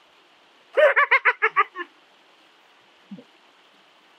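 A short high-pitched laugh of about seven quick pulses, about a second in, followed near three seconds by a brief low vocal sound.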